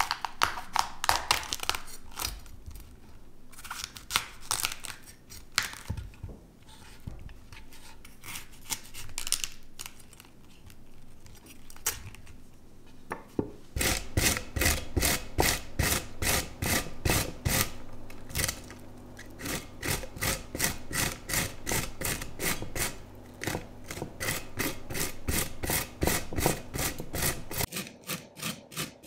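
A knife cutting a head of cauliflower apart on a wooden cutting board, then, about halfway through, cauliflower florets rubbed quickly back and forth over a coarse flat grater into a glass bowl, a steady run of rasping strokes that turns the cauliflower into rice-sized crumbs.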